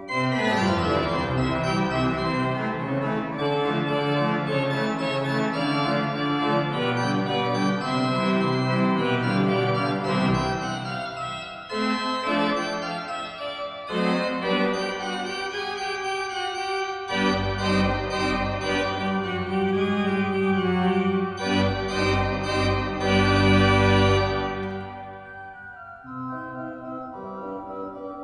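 Church pipe organ playing full sustained chords, with deep pedal bass notes coming in partway through. It drops to a softer passage a few seconds before the end.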